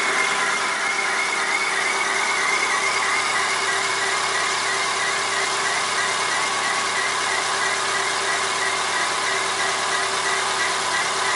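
Chevrolet Corsa 1.0 MPFI engine idling with a steady high-pitched chirping, scraping noise that warbles several times a second. The owner reports this noise after starting and says it goes away once the engine warms up, and links it to the belt.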